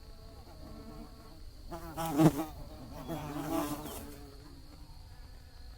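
Honeybees buzzing. One flies close by about two seconds in, its buzz growing louder and bending in pitch, and a second pass follows about a second later before the buzz fades back to a faint hum.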